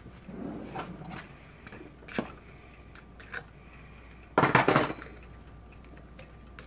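Kitchenware being handled on a counter: a few light knocks and clicks, then a loud clatter about four and a half seconds in that lasts about half a second.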